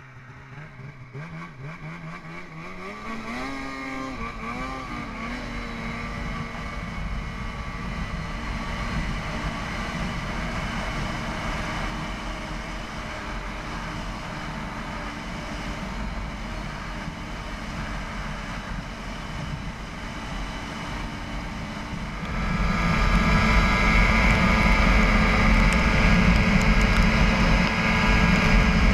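Polaris RMK 800 snowmobile's two-stroke engine revving up, its pitch rising over the first few seconds, then running steadily as the sled skims over open water. It gets clearly louder about three-quarters of the way through.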